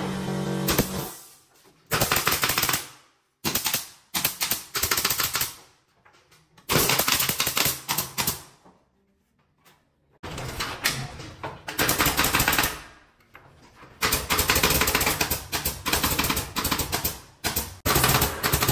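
Pneumatic nail gun driving nails into wooden ceiling battens, fired in rapid runs of shots with short pauses between runs.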